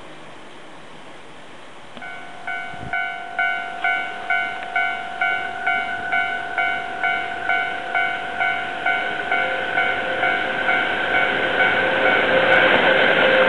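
Japanese level-crossing warning bell clanging evenly, a little over two strikes a second, starting about two seconds in. From about nine seconds in, the rumble of an approaching freight train rises beneath it and is the loudest sound by the end.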